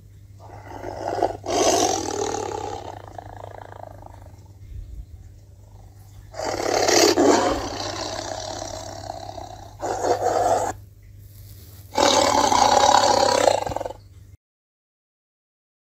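Bengal tiger roaring: four roars a few seconds apart, the first two the longest, over a faint steady low hum.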